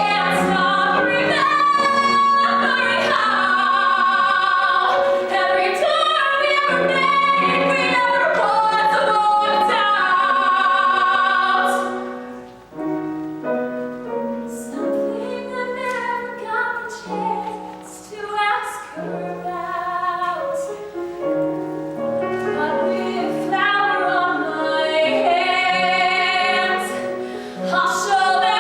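A woman singing a musical-theatre song, holding long notes with vibrato. The singing drops softer about twelve seconds in and builds back up near the end.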